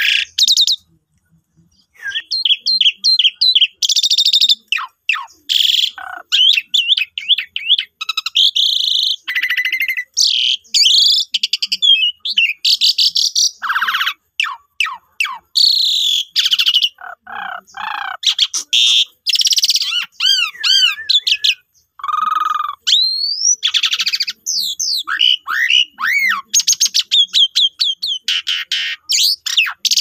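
Pied starling (jalak suren) singing a long, varied song of whistles, fast clicking rattles and sliding notes, after a pause of about two seconds at the start.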